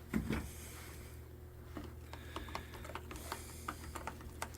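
Light, irregular clicks and taps as powdered micro metal flake is tapped out of its container into mixed paint, over a low steady hum.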